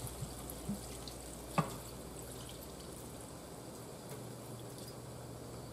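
Worcestershire sauce pouring in a thin stream from a bottle onto chicken in a hot pan: faint liquid and sizzling sounds over a low steady hum, with one sharp click about one and a half seconds in.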